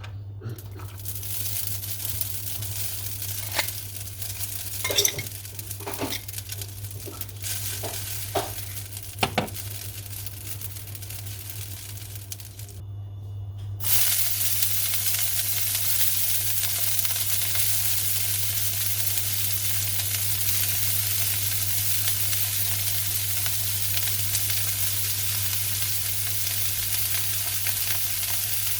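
Food sizzling as it fries in a pan, with clicks and scrapes of a utensil stirring it in the first half. After a short break about halfway, the sizzling comes back louder and steady.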